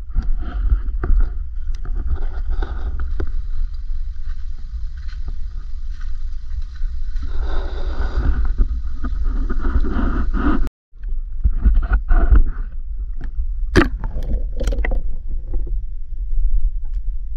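Low rumbling handling noise from an action camera on a pole rig as it is pushed through creek-side grass and dipped underwater, with scattered sharp knocks in the second half.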